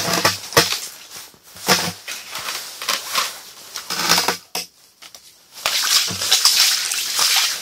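A large burbot thrashing and slapping on wet, slushy ice as it is unhooked with pliers: a series of short wet slaps and scuffles, with a longer scuffling stretch near the end.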